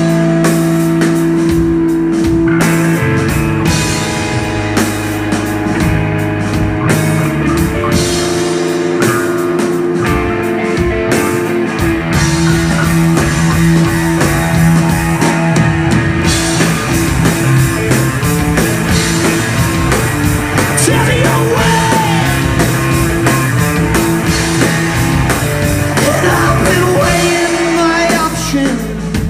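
Live rock band playing loudly: electric guitar, electric bass and a drum kit.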